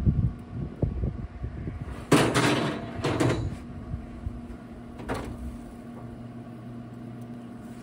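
Metal grill grates clattering and scraping as a raw turkey goes into an open pellet smoker: a few dull knocks at first, a loud rattle about two seconds in lasting over a second, and a shorter clank around five seconds. Under it the running pellet smoker hums steadily.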